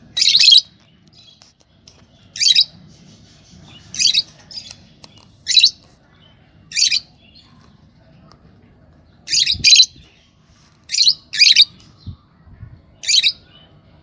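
Lovebirds calling: about ten short, shrill, high-pitched calls every second or two, some coming in quick pairs.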